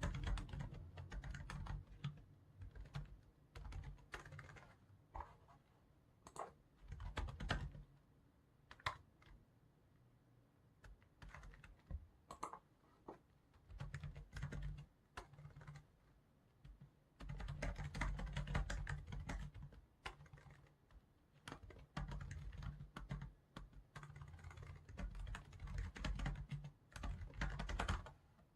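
Typing on a computer keyboard in irregular bursts of keystrokes, with sparser pauses of a few seconds between runs.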